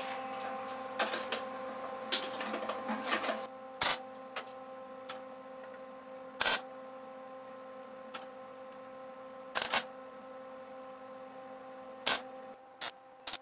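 Handling noise of metal parts on a workbench: rustling and small clatter at first, then single sharp clicks and knocks every few seconds, over a steady hum.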